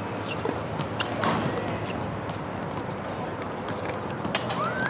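Tennis rally: a few sharp knocks of the ball off racket and court over a steady background hiss.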